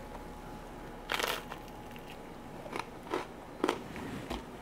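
A bite into a crisp toasted baguette slice topped with shrimp dip, a crunch about a second in, then three short crisp crunches as it is chewed.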